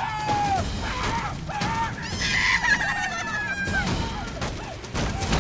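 A cartoon Christmas tree's voice screaming and wailing in falling cries, rising to a higher, strained scream midway, over repeated axe chops striking the trunk.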